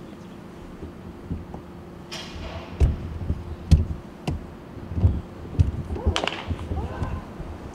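Baseball bats striking pitched balls in batting cages: a run of sharp cracks about half a second to a second apart, starting about three seconds in, the loudest near the middle. A faint steady hum runs underneath.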